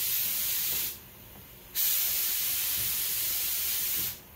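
Two bursts of steady hiss, the first ending about a second in and the second lasting about two seconds, each starting and stopping sharply.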